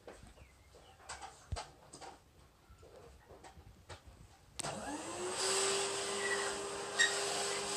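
Faint scattered clicks and scratches, then about four and a half seconds in an electric motor starts up, its whine rising quickly to a steady pitch over a rushing hiss.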